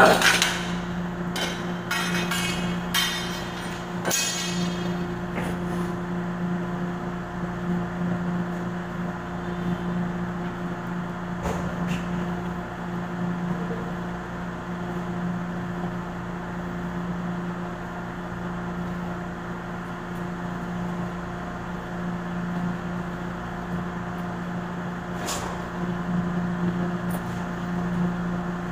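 Metal clinks and clanks of a hand conduit bender and metal conduit pipe being handled: several in the first few seconds, one of them ringing, then a few single clicks later. A steady low mechanical hum runs underneath.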